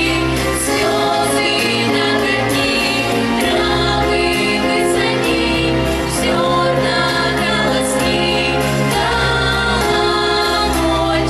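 Children's vocal group singing together in held notes over an instrumental accompaniment with a steady low bass.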